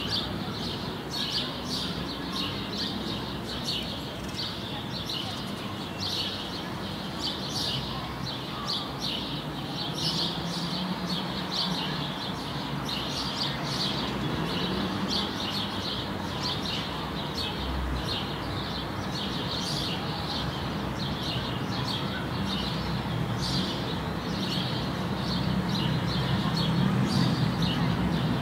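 Small birds chirping and singing continuously, many short high calls in quick succession, over a low steady background hum.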